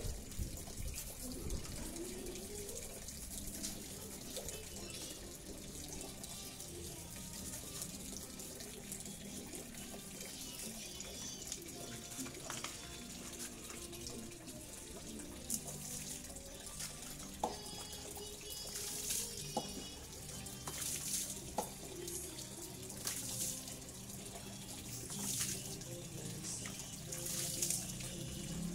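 Water running from a garden hose into a bucket, with brief scrubbing and splashing strokes and a few light knocks as a motorbike is washed by hand.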